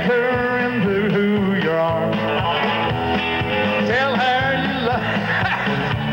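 Live rock-and-roll band playing an instrumental break, an electric guitar lead line with bent notes over bass and drums.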